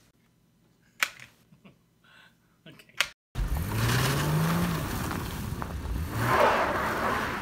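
Car engine revving, rising in pitch and then holding, as the front wheels spin in deep snow. Tyre and snow noise swells to its loudest near the end. Before this, starting about halfway in, there is a quiet room with two sharp clicks.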